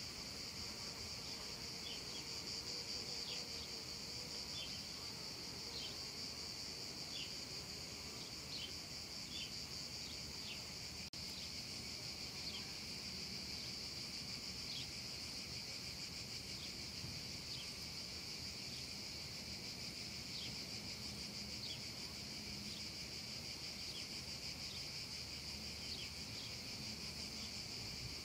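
A chorus of cicadas singing in a steady, unbroken high-pitched buzz, with short high chirps scattered through it.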